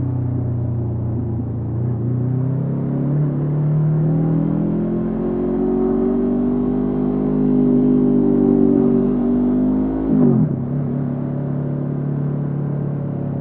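Honda CB500F's parallel-twin engine through a Mivv GP Pro aftermarket exhaust, pulling under acceleration: the revs climb steadily for several seconds, hold, then drop sharply about ten seconds in and settle at a lower steady pitch.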